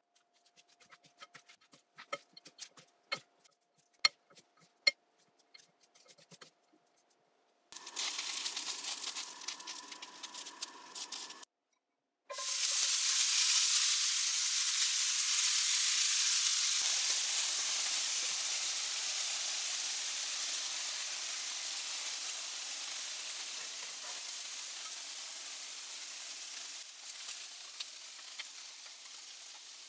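Wooden chopsticks clicking against a glass bowl as shredded potato is tossed with starch. About twelve seconds in, a loud sizzle starts suddenly: shredded pizza cheese frying in a hot stainless steel pan. The sizzle fades slowly as the cheese melts.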